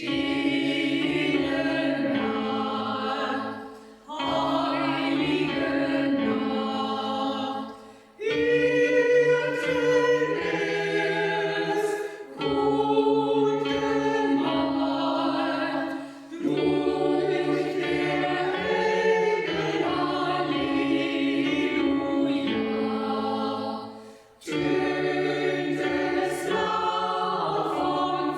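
Choir singing in phrases of about four seconds, each followed by a brief pause for breath.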